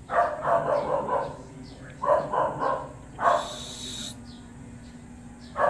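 A dog barking in three quick runs of barks, with a brief hiss just past the middle.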